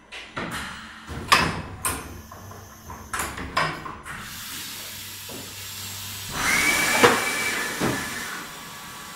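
OKK MCV860-UP vertical machining center's mechanism clunking several times, over a low hum. Then comes a blast of air hissing, with a steady whistle through it, for about two seconds.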